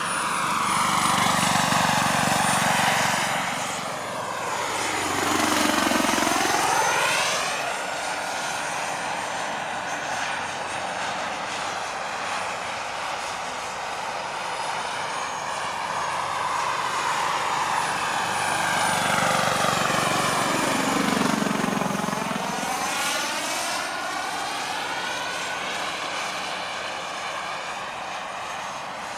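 Large-scale RC model turbine helicopters (scale Bell JetRangers) flying: a steady high turbine whine over rotor noise. The sound swells and sweeps down and back up in pitch twice as a helicopter passes close.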